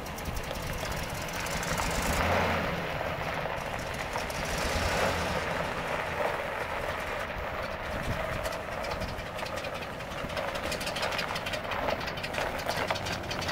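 2008 Ford F-350 Super Duty truck driving slowly across gravel: engine running at low speed, with tyres crunching over the stones. The engine sound swells briefly twice in the first few seconds.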